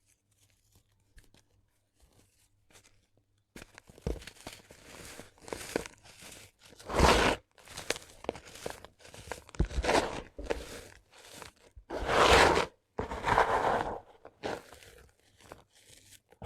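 Dried sand-cement crumbling with crunchy, gritty crackles in an irregular run of bursts. It starts about three and a half seconds in, and the loudest crunches come near the middle and again a little past it.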